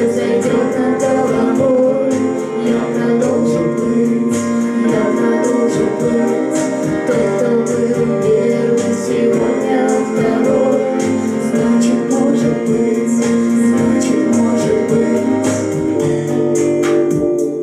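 A live band playing a song with singing over keyboard and band accompaniment, with a steady beat.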